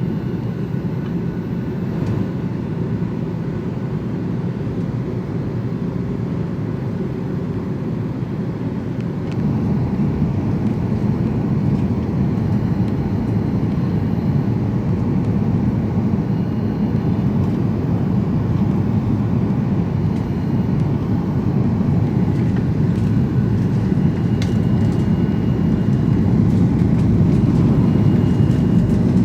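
Cabin noise inside a Boeing 737-800 airliner: the steady low rumble of engines and airflow. It steps up in level about nine seconds in and stays louder.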